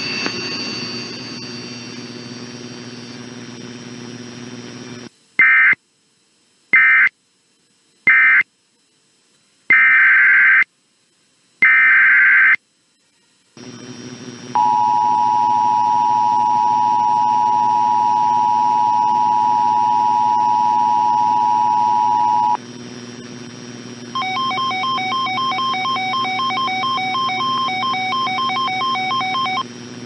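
Emergency Alert System tones from a radio broadcast. First come five short, harsh bursts of SAME digital data, marking the end of one alert and the header of the next. Then the two-tone EAS attention signal holds steadily for about eight seconds, and near the end several tones beep rapidly together, all over a low hum.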